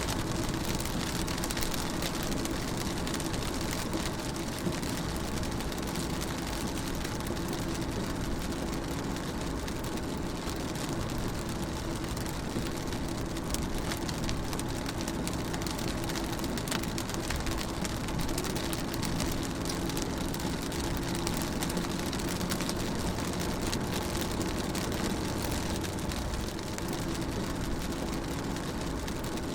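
Rain pattering steadily on a car's roof and windscreen, heard from inside the moving car, over a steady low hum of engine and road noise.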